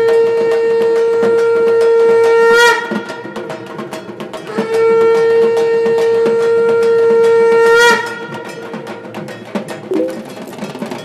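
Conch shell (shankha) blown in two long, steady blasts, each about three and a half seconds and ending with a short rising warble, with fast percussion clicking underneath.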